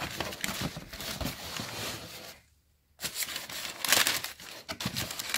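Tissue paper in a shoe box crinkling and rustling as a hand folds it back, with a short pause about halfway through and louder crackles a second later.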